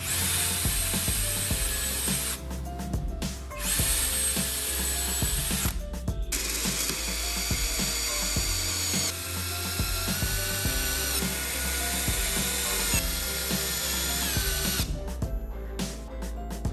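An electric power tool runs in several stretches with short stops. Its whine steps up and down in pitch a few times, over background music.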